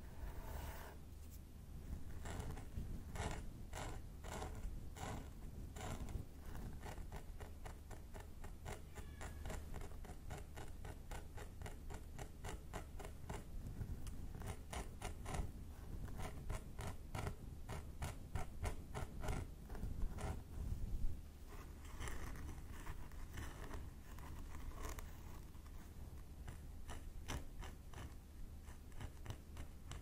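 Close-miked metal-tipped pick scratching along a scalp parting through hair, a long run of short, quick scrapes picking at dandruff. The strokes come fastest midway, with one louder scrape a little past the middle.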